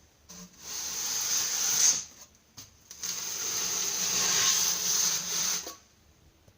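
Two long bursts of pressurised spray hissing, the first about a second and a half long and the second nearly three seconds, each starting and stopping abruptly.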